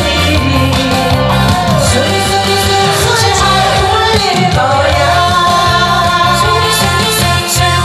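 A woman singing a Korean pop song (가요) live into a handheld microphone over a backing track with a steady, repeating beat.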